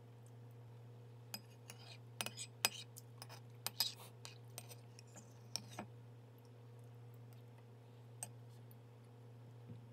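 Metal spoon clinking and scraping against a ceramic bowl while the last of the rice congee is scooped out: a run of light clinks over a few seconds, then one more near the end, over a low steady hum.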